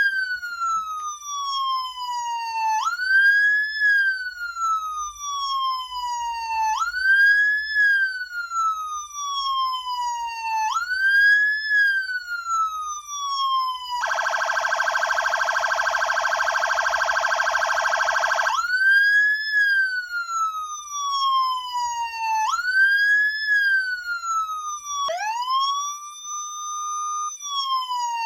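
Whelen WSSC30 electronic siren sounding a wail: each cycle rises quickly and falls slowly, repeating about every four seconds. About halfway through, a steady buzzing air-horn tone cuts in for about four seconds before the wail resumes. Near the end, one cycle holds its pitch for a couple of seconds before falling.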